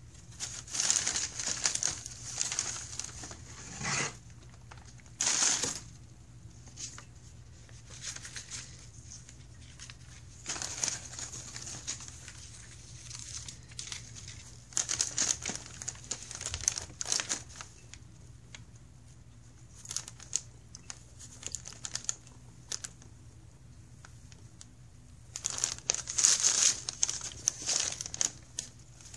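Brown kraft packing paper crinkling and rustling in irregular bursts of a second or two, with quiet gaps between, as a cat paws and noses through it in a cardboard box.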